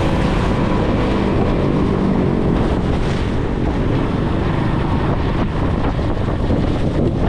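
Strong storm wind blowing across the microphone: a loud, steady rush of noise.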